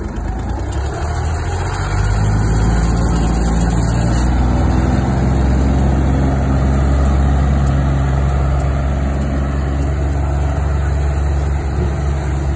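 A vehicle engine running close by, picking up in pitch and loudness over the first two seconds, then holding at a steady, even speed.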